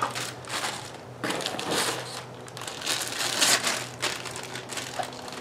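Thin plastic packaging bags crinkling and rustling in irregular bursts as they are pulled off a battery charger and battery pack, with a sharp knock at the very start.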